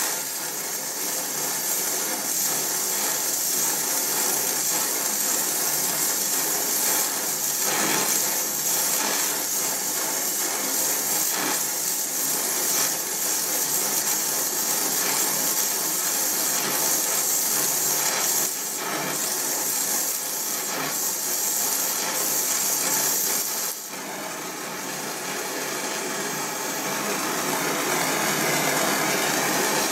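Steady hiss of a Donmet 132A Micro gas welding torch flame burning during welding, briefly quieter about 24 seconds in.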